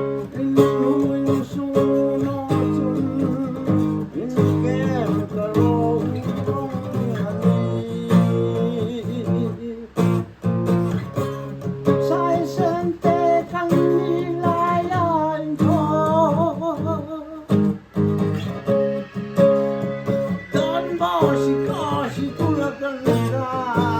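Strummed acoustic guitar with a voice singing a wavering melody over it.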